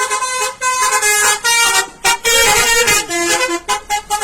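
Telolet horn, a multi-tone musical air horn, playing a quick melody of short and held notes that jump in pitch, cutting off suddenly at the end.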